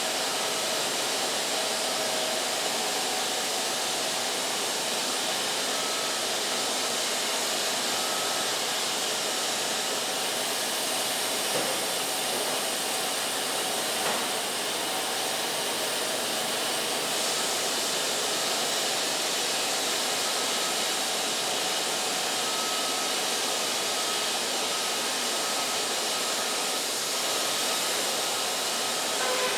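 Wood-Mizer LT50 band sawmill running with a steady hiss and a few faint steady tones.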